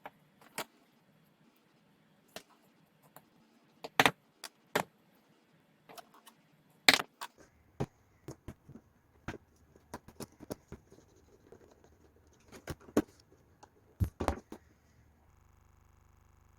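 Irregular sharp clicks and knocks of small plastic parts and screws being handled as 3D-printed plastic parts are joined with small self-tapping screws by hand, the loudest knocks about four, seven, thirteen and fourteen seconds in. A faint steady hum comes in near the end.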